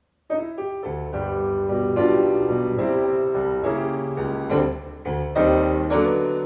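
Piano music: sustained notes and chords in a slow melody, beginning a moment in after a brief silence.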